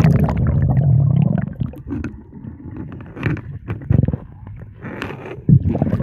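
Muffled underwater sound from a phone held submerged in a river: a low rumble of moving water for about the first second and a half, then scattered dull knocks and scrapes, with a louder thump about five and a half seconds in.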